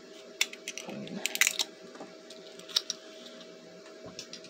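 Light clicks and taps of small plastic toy figures and eggshell pieces being handled and set into a plastic egg-carton tray, with a quick cluster of clicks about a second and a half in and a few single taps before and after, over a faint steady hum.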